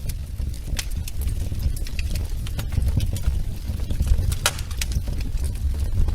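Wood fire crackling in a fireplace: irregular sharp pops and snaps over a steady low rumble, with one louder pop about four and a half seconds in.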